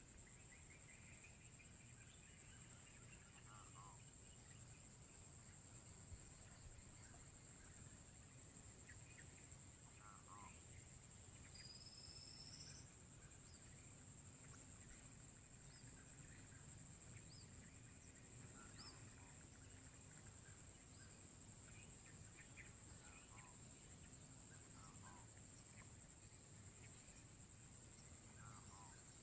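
Forest insects keep up a steady high-pitched drone, and short animal calls break in every few seconds, with one brief higher whistle-like call about twelve seconds in.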